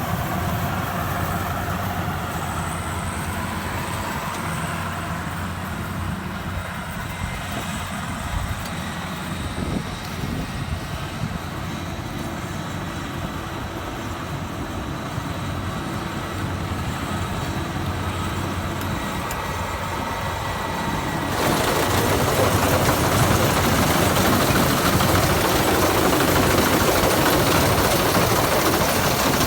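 Combine harvester's engine running steadily with a low rumble; about two-thirds of the way through it turns suddenly louder and harsher, with a dense rushing noise of the machinery added.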